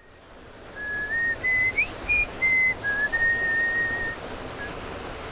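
A person whistling a short tune: a run of clear notes that step up and down with a couple of quick slides, ending in one long held note. Beneath it runs the steady rush of creek water.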